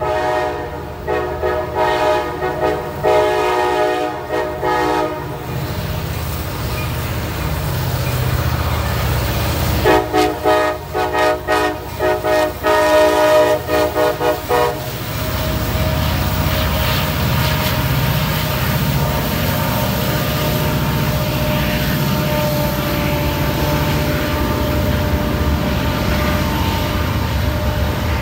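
CSX freight train's diesel locomotive sounding its multi-tone air horn in two spells of blasts, the first through about the first five seconds and the second from about ten to fifteen seconds in as the lead unit passes. After that the locomotive's diesel and the freight cars rolling by make a steady rumble.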